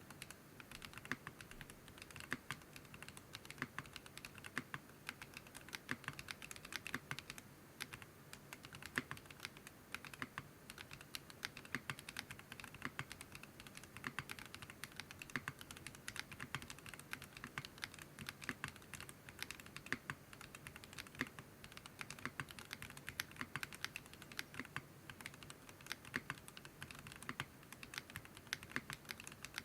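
Fast, continuous typing on a Geonworks F1-8X mechanical keyboard with Zaku switches, a 1 mm aluminium plate and PBT keycaps: a dense, uneven run of key clacks.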